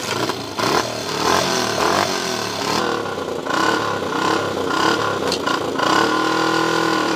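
Motorcycle engine running and being revved, its pitch rising and falling, settling into a steadier running note about six seconds in.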